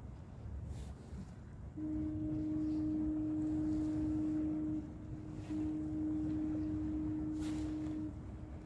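Ship's horn sounding two long, steady blasts with a short gap between them, the signal of a ship about to leave port.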